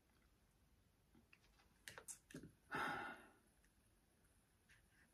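Near silence, broken about two seconds in by a few faint clicks and then a short breathy exhale lasting about half a second.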